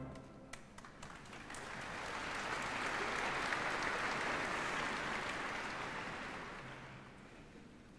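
Concert-hall audience applauding briefly after a loud orchestral ending. The clapping swells over a couple of seconds, then dies away near the end.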